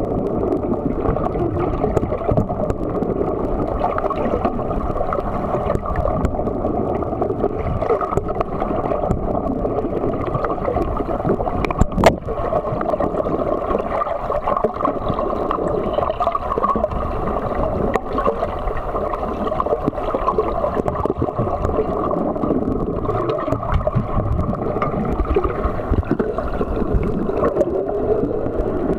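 Muffled underwater noise picked up by a camera held under water: a steady churning rumble of water and bubbles, with a single sharp click about twelve seconds in.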